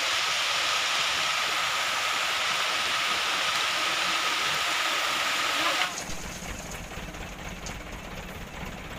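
A steady hiss with a faint high whine, which cuts off abruptly about six seconds in. It gives way to the low, steady rumble of a diesel dump truck's engine running.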